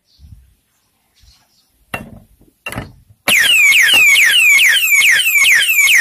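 Security alarm padlock being tampered with by a metal bar. Two sharp metal knocks about two seconds in are followed by the lock's built-in siren going off very loud: rapidly repeating falling whoops, about three a second, which cut off abruptly at the end. Tampering with the lock is what sets off the siren.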